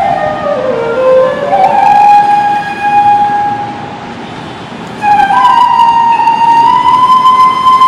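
Bansuri (bamboo flute) playing a slow line of raga Yaman: a held note slides down and climbs back, softens for a moment, then a louder note enters about five seconds in and glides up into a long held tone.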